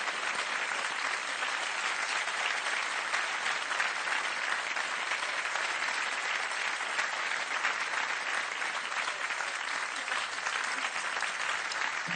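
Studio audience applauding steadily, a dense even clapping with no music or voices above it.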